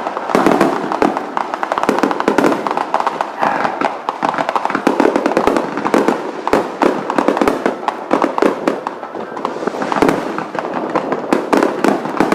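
Fireworks display: aerial shells bursting in quick succession, a near-continuous barrage of bangs and crackling with no pause.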